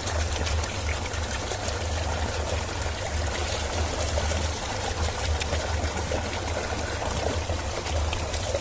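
Steady rush of water pouring from a pipe outlet into a shallow pool, with a low rumble underneath.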